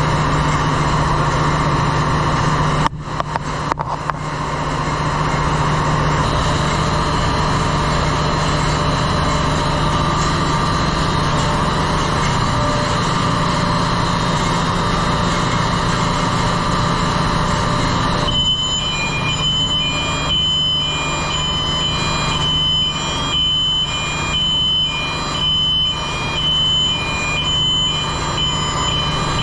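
Loud, steady machinery drone of a ship's engine room with a low hum. From about two-thirds of the way in, a high electronic beeping joins in, stepping between two pitches and switching on and off repeatedly.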